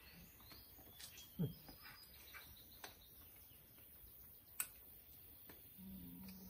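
Quiet outdoor ambience with faint bird chirps, a brief low falling sound about a second and a half in, a sharp click a little after four and a half seconds, and a short low steady hum near the end.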